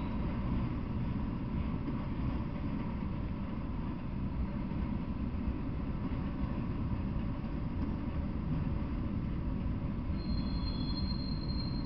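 Freight train of autorack cars rolling past, a steady low rumble of wheels on rail. A thin, high wheel squeal starts near the end.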